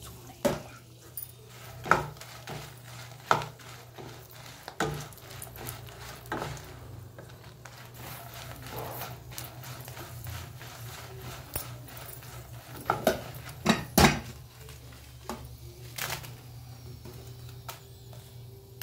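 Spatula knocking and scraping against a nonstick frying pan while stirring dry red chillies frying in oil: sharp knocks about every second and a half at first, then a louder cluster of knocks about two-thirds of the way through.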